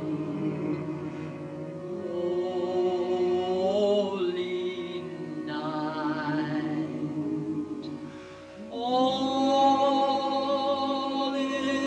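A woman singing slowly in a trained, operatic voice with wide vibrato, holding long notes over keyboard accompaniment. A short break comes a little after halfway, then she swells into a long, louder held note.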